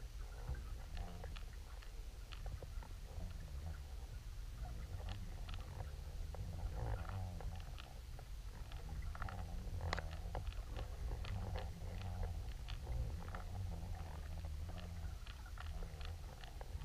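Underwater sound of a towed camera: a steady low rumble of water moving past it, with scattered small clicks and ticks throughout, a sharper one about ten seconds in.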